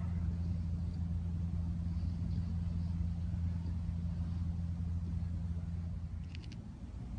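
Steady low engine drone, easing off about six seconds in, with a few small clicks just after.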